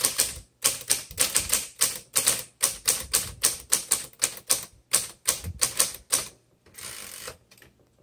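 1952 Smith Corona Sterling manual typewriter being typed on: a quick run of sharp key strikes, about four or five a second, that stops about six seconds in and is followed by a short rasping sound.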